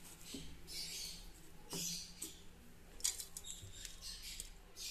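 Steel spoon scraping and stirring in a steel kadai, pushing cooked drumstick leaves and a coarse peanut-coconut mix around the pan: faint, scattered short scrapes in a few bursts.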